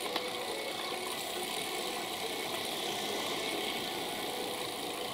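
Steady road and wind noise of a bicycle rolling along, with a faint rattle, heard from a camera mounted on the moving bike; a small click just after the start.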